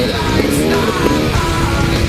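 Loud heavy metal music with electric guitar.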